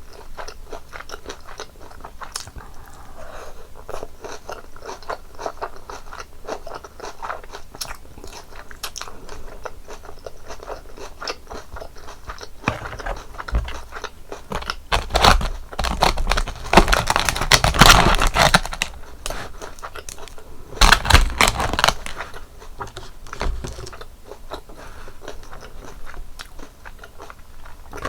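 Close-miked chewing of crispy breaded cheese pork cutlet: a steady run of crackly crunches and mouth clicks, with louder bursts of crunching a little past halfway and again about three-quarters of the way through.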